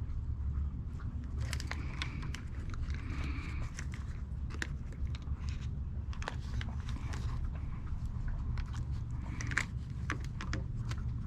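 Scattered small clicks and rustles of hands working small parts, fitting a motorcycle turn-signal light, over a steady low hum.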